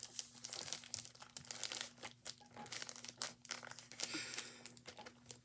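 Plastic zip-top baggie crinkling irregularly as it is shaken and squeezed to push shaving cream down into the bottom.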